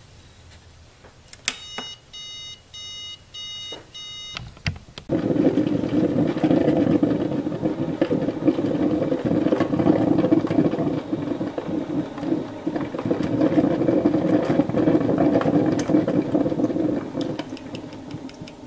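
Ninja Coffee Bar beeping about four times, then brewing: its pump and heater run with a steady gurgling hiss as hot coffee drips onto ice in the glass, easing off near the end.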